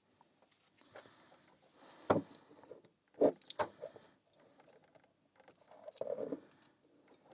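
A padlock and small metal lockpicking tools being handled: a few sharp clicks and knocks about two and three and a half seconds in, and a burst of handling and scraping near the six-second mark.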